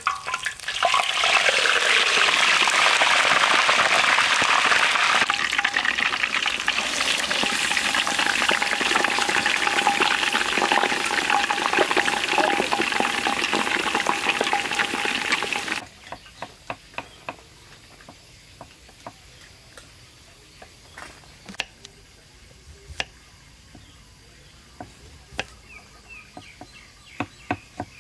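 A whole chicken going into hot oil in a wok: the oil sizzles and bubbles loudly for about fifteen seconds as the chicken deep-fries and is basted, then stops abruptly. After a quieter stretch with scattered clicks, a knife starts cutting on a wooden chopping board near the end in quick, even strokes.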